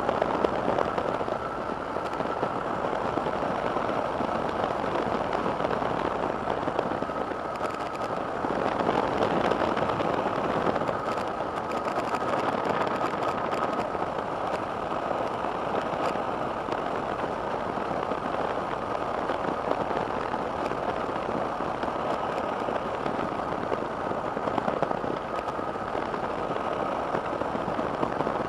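Two-stroke microlight engine and propeller running steadily in flight, heard from the open cockpit mixed with wind rush, with a thin steady whine over the drone.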